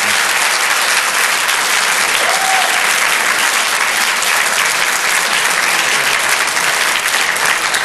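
Audience applauding: dense, even clapping that holds a steady level.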